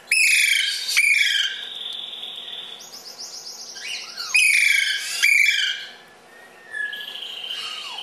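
Caged birds calling: loud, sharp calls that fall in pitch, heard twice near the start and twice more near the middle. Between them come a held whistle-like note and a quick run of high, repeated chirps.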